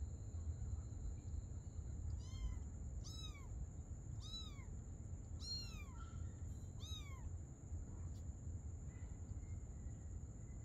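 Ginger kitten mewing five times in short, high calls, each rising then falling, while its mother cat licks it and pins it down.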